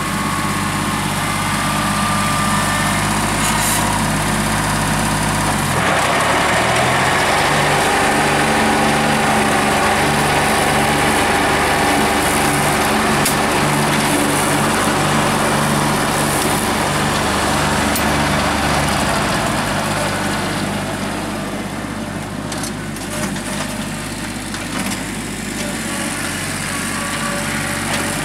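New Holland TC18 compact tractor's small three-cylinder diesel running as it drives, its note rising abruptly about six seconds in and easing back again after about twenty seconds.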